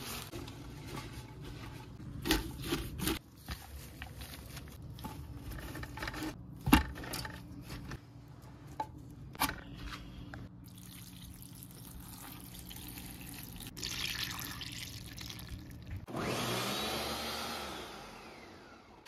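Kitchen prep: fresh leaves rustling as they are pressed into a pot, with several sharp knocks. Then a countertop blender runs, puréeing herbs and garlic into pesto, and winds down near the end.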